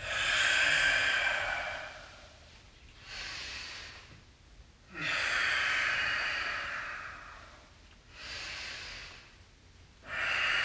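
A man's deep, audible yoga breathing: three long, loud, hissing exhales as he sinks down and squeezes, each followed by a shorter, quieter inhale as he rises.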